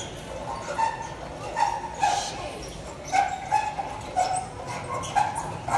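A puppy barking in a string of short, high yaps, about eight of them.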